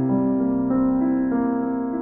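Background instrumental music: steady held notes in chords that change about every half second.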